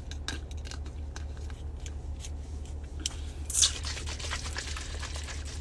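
Handling noise on a phone microphone: scattered small clicks and scraping, with a brief louder rustle about three and a half seconds in, over a steady low hum.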